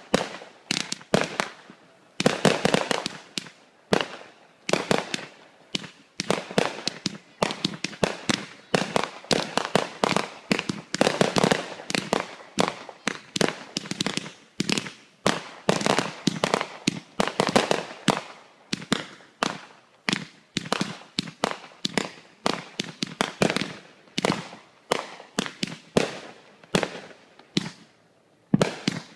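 Fireworks going off in rapid succession: a steady run of sharp bangs and crackling, several a second, with short gaps between volleys and a pause near the end.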